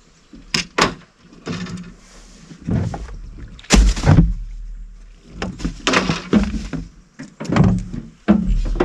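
Irregular knocks and thumps on a small fishing boat's hull and deck as someone moves about in it and handles gear and a caught crappie, some with a hollow low boom; the heaviest are two thumps about four seconds in.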